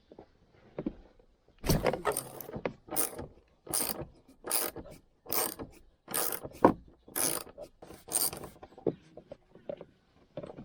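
Socket ratchet wrench clicking through a series of back-strokes, roughly one stroke a second, as a 14 mm bolt is loosened.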